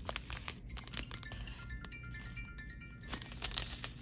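Ringing of several steady high tones at a few different pitches, sounding from about a second in until about three seconds in. Underneath, the crinkling of small plastic bags of diamond-painting drills being handled.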